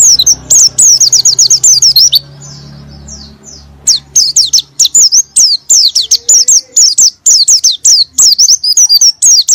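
White-eye (pleci) singing loudly: fast runs of high, sweeping chirps, broken by a pause of about a second and a half about two seconds in, after which the song resumes.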